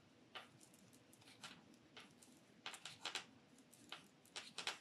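Near silence with faint, irregular small clicks and rustles from a metal crochet hook and yarn being worked by hand in single crochet stitches in the round, about a dozen ticks spread unevenly.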